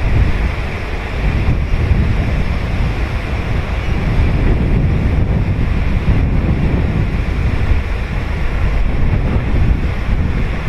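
Ocean surf breaking and washing on a sandy beach, heavily overlaid with wind buffeting the microphone as a deep, steady rumble.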